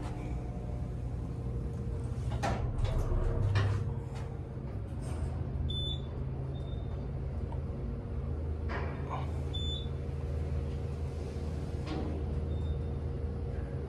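Otis Gen2 traction elevator's doors sliding shut, with a click or two, then the car travelling under a steady low hum. A few sharp clicks and brief high blips come from the cab while it runs.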